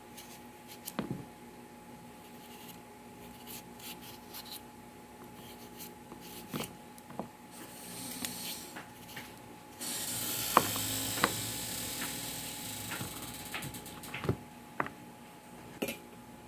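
Kitchen knife paring the skin off a chayote held in the hand: soft scraping strokes with scattered light clicks and knocks, and a longer scraping stretch about two-thirds of the way through.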